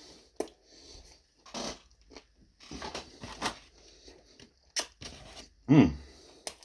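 A man chewing big mouthfuls of pizza, with scattered wet clicks and rustling, and a short grunt near the end.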